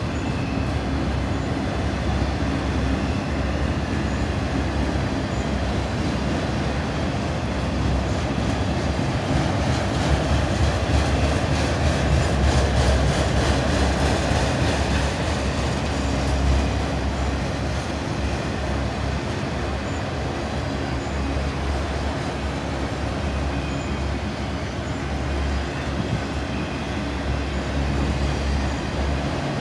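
Autorack freight cars rolling past: a steady rumble of steel wheels on rail with a rhythmic clatter, a little louder about ten to fifteen seconds in.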